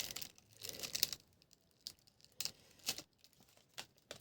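Memory-card packaging being handled: a short crinkle about a second in, then scattered light clicks and taps.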